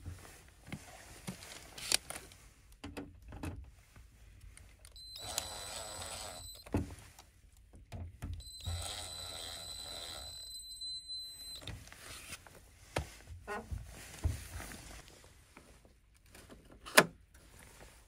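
Cordless drill-driver driving the access-panel screws back into a heat pump's casing: two runs of high motor whine, about two and three seconds long, with clicks and knocks of handling between them and a sharp click near the end.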